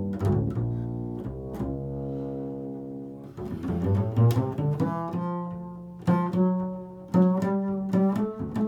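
Improvised instrumental music: low notes sounding with sharp attacks and ringing on, several at a time, in slow changing chords.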